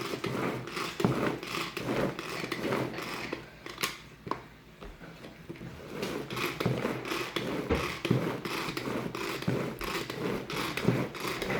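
Tupperware Power Chef pull-cord chopper worked in repeated strokes, its cord zipping out and rewinding while the blades chop strawberries and cream in the plastic bowl. There is a quieter lull about four seconds in before the pulling picks up again.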